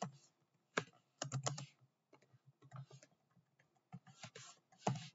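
Typing on a computer keyboard: irregular keystrokes, some single and some in quick runs of several taps, with short pauses between.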